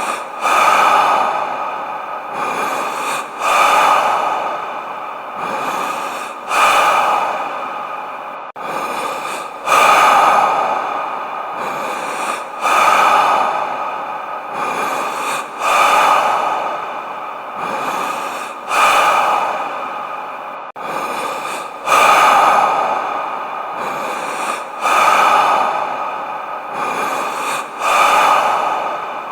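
Deep human breathing with heavy reverb: slow, even in-and-out breaths, one cycle about every three seconds, repeating as a loop.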